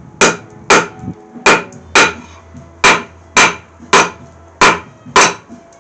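Blacksmith's rounding hammer striking hot mild steel on an anvil about twice a second, each blow a sharp metallic clang with a brief ring: drawing the bar down into a taper.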